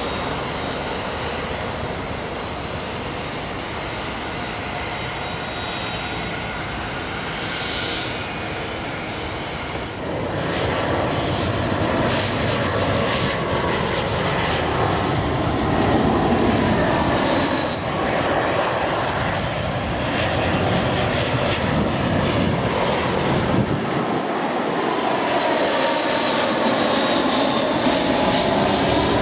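Twin-engine jet airliners on final approach, their engines running as they pass low, in a few separate passes. The sound grows louder about ten seconds in, and one pass drops in pitch as it goes by.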